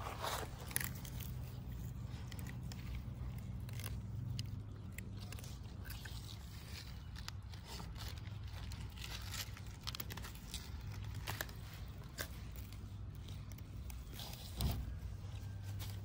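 A dog biting and chewing at a pile of fresh green leaves and stems: irregular crunches and leafy rustles, with one sharper knock near the end.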